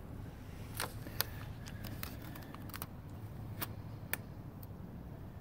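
Scattered light clicks and crackle of blue painter's tape being pulled off the roll and pressed by hand onto a dinghy's hull, over a steady low hum.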